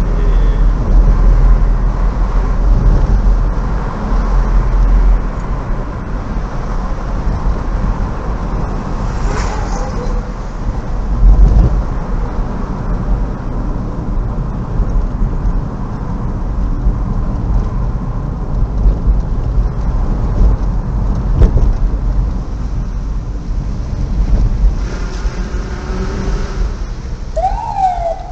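Car cabin noise while driving: a steady low rumble of engine and road, with a few brief knocks and faint voice-like glides near the end.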